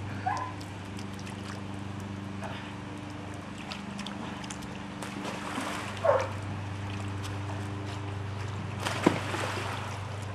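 Steady low hum with a few faint, brief sounds over it: a short pitched sound about six seconds in, and a sharp click near the end.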